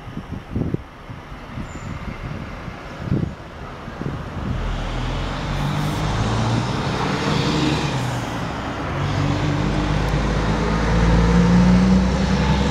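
Irregular low knocks and rustle in the first few seconds, then about four and a half seconds in a steady low machine hum sets in and grows louder near the end.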